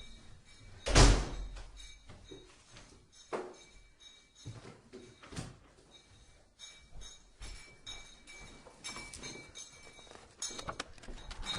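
One loud thump about a second in, followed by scattered softer knocks and clicks.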